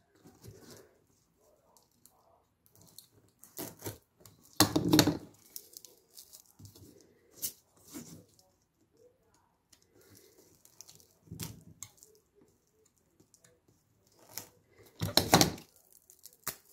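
Utility knife blade cutting through a self-adhesive Velcro strip on a plastic cutting board, in a few short scraping cuts, the loudest about five seconds in. Near the end comes a short rip as the cut Velcro pieces are pulled apart.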